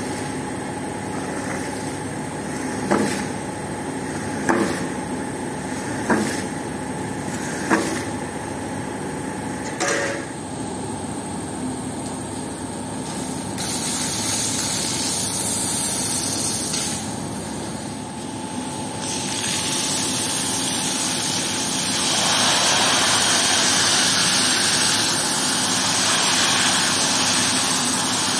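A pressure washer's motor and pump running steadily. Over the first ten seconds there are five short swishing strokes of a squeegee pushing muddy water across a soaked carpet. About halfway through, the high-pressure water jet starts hissing onto the floor and carpet, and it gets louder a few seconds later.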